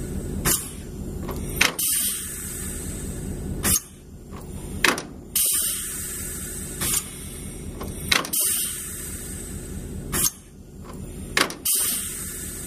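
Reversing mechanism of a Voith hydraulic transmission in a Krauss-Maffei diesel-hydraulic locomotive being shifted back and forth: about ten sharp clunks, some in close pairs, with a hiss that starts and stops between them, over a steady low machinery hum.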